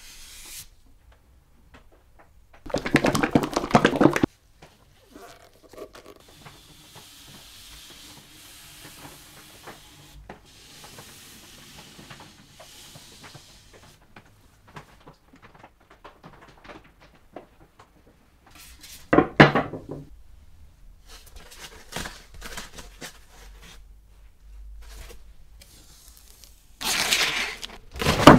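Quiet rubbing of a cloth and gloved hands over a beech-wood rail as a finish is wiped on. Three short, loud bursts of crackling, rustling handling noise break it: about 3 seconds in, about 19 seconds in, and near the end, when the protective plastic film on an aluminium sheet is being handled.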